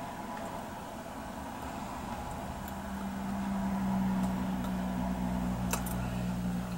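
A low, steady motor hum swells about halfway through over a background hiss, with one sharp click near the end.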